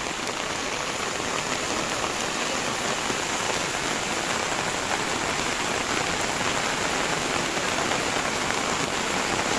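Heavy rain falling steadily, a dense even hiss with no breaks.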